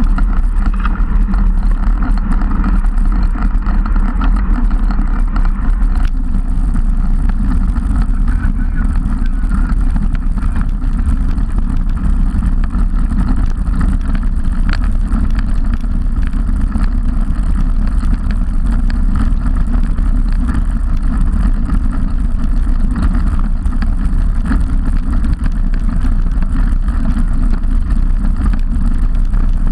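Wind buffeting the microphone of a bike-mounted camera on a moving road bicycle, mixed with tyre noise on tarmac: a loud, steady rumble.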